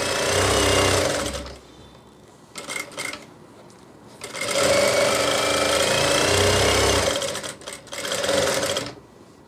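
Sewing machine stitching in short runs: one at the start, a longer run of about three seconds in the middle, and a brief one near the end, with a few light clicks in the pause between.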